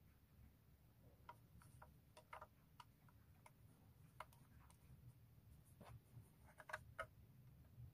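Faint, irregular small clicks and taps as the parts of a Xiaomi Smart Door Lock E are handled, with a cluster of slightly louder clicks near the end.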